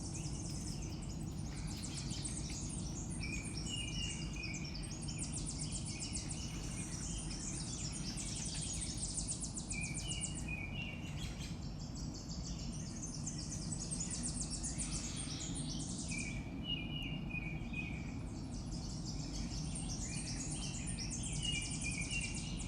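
Outdoor birds calling: groups of short repeated chirping notes about four times, between bouts of high, rapid trilling, over a steady low hum.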